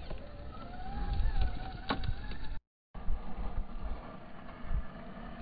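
An electric RC rock crawler's motor whines and wavers in pitch as the throttle changes while the truck climbs over rough ground, with a few sharp clicks from tyres and rock. The sound drops out completely for a moment about halfway through.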